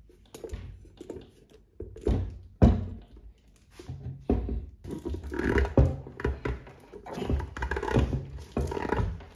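A new tyre being forced onto a OneWheel Pint's wheel hub by hand: irregular thunks and knocks with rubbing and scraping between them. The loudest thumps come about two seconds in, just after that, and around the middle.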